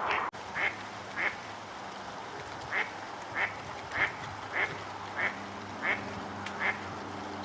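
A duck quacking repeatedly: about nine short quacks in an irregular series, roughly one every half second to second, with a gap of about a second and a half early on.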